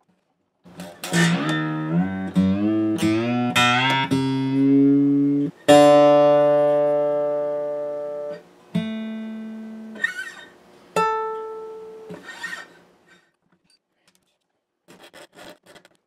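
Gibson J-50 acoustic guitar's steel strings plucked: a quick run of notes, then single notes left to ring, one stopped abruptly by hand.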